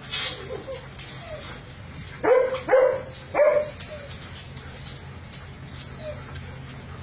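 Alaskan malamute giving three short barks in quick succession about two seconds in.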